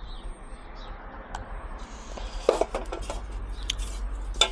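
Small metal scrap items being handled and shifted about in a box: scattered light clicks, knocks and clinks, busier near the end.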